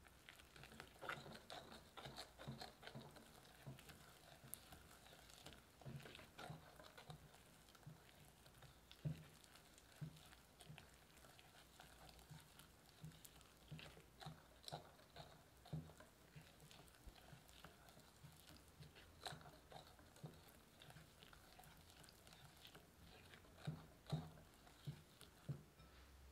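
Silicone-coated whisk stirring flour into egg whites in a glass bowl: faint wet squelching of the thick batter with irregular light taps and knocks of the whisk against the glass, as the mixture turns to smooth financier batter.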